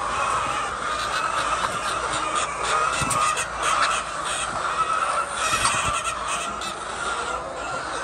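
A flock of chickens clucking and squawking together, many overlapping calls in a steady chorus.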